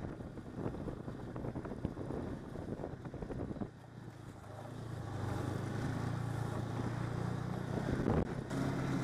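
Snowmobile engine running with wind buffeting the microphone and knocks from the bumpy track. About four seconds in it eases off briefly, then picks up into a louder, steady drone.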